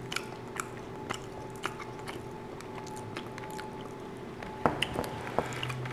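Close-miked chewing of soft garlic-knot bread and chicken: scattered wet mouth clicks and smacks, more of them near the end, over a faint steady hum.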